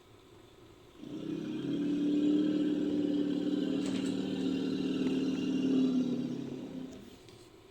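Low, steady call of a Gomphotherium sound effect built from elephant and woolly mammoth recordings. It starts about a second in, holds for about six seconds, and fades out near the end.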